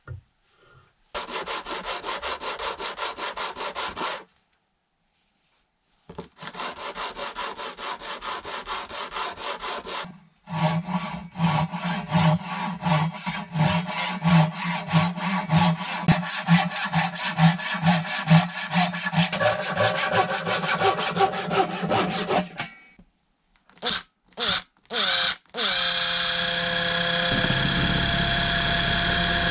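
Hand saw with a wooden handle cutting through a round wooden dowel, in quick rhythmic back-and-forth strokes, stopping twice briefly before a longer run. Near the end a cordless drill gives a few short blips, then spins up and runs steadily, boring into the end of a dowel.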